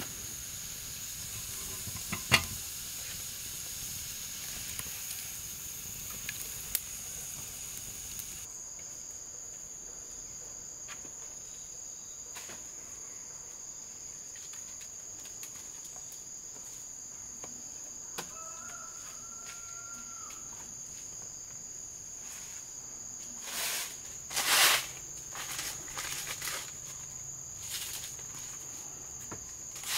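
Insects droning steadily in the forest, one continuous high-pitched tone. Near the end a few louder rustles and knocks break in.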